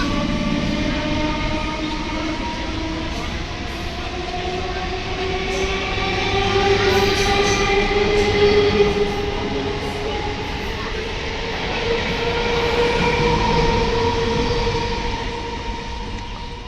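Electric multiple unit (EMU) suburban train running through the station: a layered electric motor whine that rises slowly in pitch and then holds steady, as the train gathers speed, over a rail rumble with scattered short clicks from the wheels.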